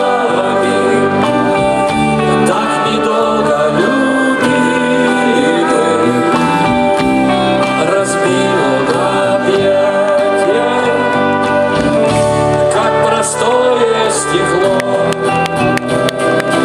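Rock band playing live and loud: a slow instrumental stretch with sustained guitar and keyboard lines over bass and drums, with no words sung.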